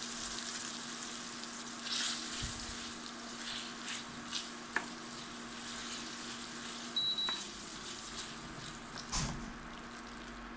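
Fettuccine in butter and parmesan sauce sizzling in a hot steel frying pan while being stirred and tossed with a wooden spoon, with a few light knocks of the spoon against the pan. A short high beep sounds about seven seconds in.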